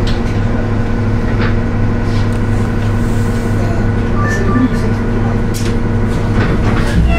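Cummins ISL-G natural gas engine of a Nova Bus LFS idling, heard from inside the passenger cabin as a steady low drone with a constant hum. A few light clicks or rattles come through it.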